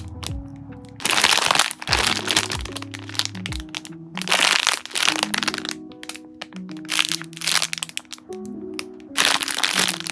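Clear plastic packaging bags crinkling and crackling as bagged squishy toys are handled. The loudest bursts come about a second in, about four seconds in and near the end, with small crackles between them, all over soft background music.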